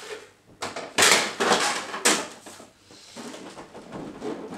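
Parts of a Jura coffee machine being handled and fitted: a few sharp plastic knocks and scrapes in the first two seconds, then softer rustling.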